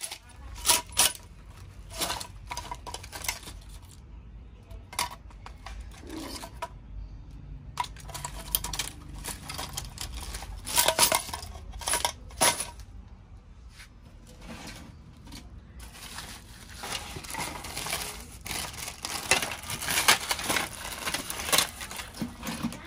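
Hands rummaging through plastic baskets of scrapped phones and phone parts: repeated clinks and clatters of phone bodies, metal frames and glass knocking together, busier in the last third.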